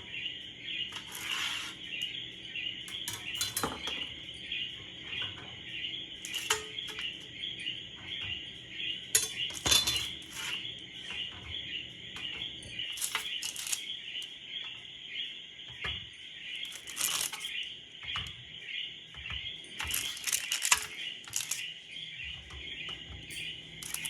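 Metal clinks and scrapes of a spatula and baking pan as baked cookie sticks are lifted onto a wire cooling rack, in scattered knocks throughout, with a steady high-pitched chirring in the background.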